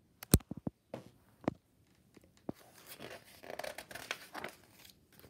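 Picture-book page being turned by hand: a sharp knock about a third of a second in and a few light taps, then about two seconds of paper rustling as the page is turned over.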